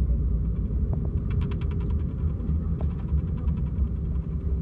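Cabin-side sound of an Airbus A321 decelerating on the runway after landing: a steady low rumble of engines and wheels as the thrust reversers close. A rapid rattle of ticks, about ten a second, comes in about a second in and again near three seconds.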